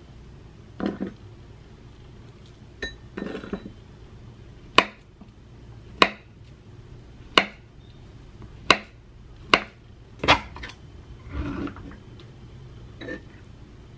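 Kitchen knife slicing a banana on a plastic cutting board: six sharp taps of the blade on the board, roughly one a second, about a third of the way in. Softer handling rustles come before and after the taps.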